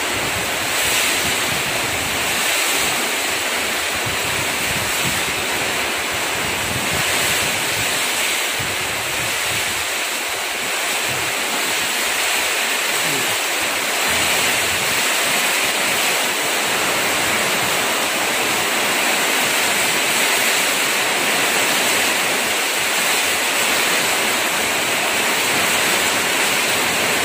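Heavy tropical rain pouring down, a loud, steady, dense hiss with no let-up.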